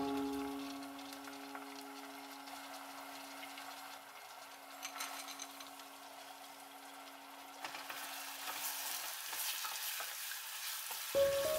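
Diced carrots and green peas sizzling in hot oil in a stainless steel pressure cooker while a wooden spatula stirs them; the sizzling grows louder in the last few seconds. A low held tone fades out over the first part.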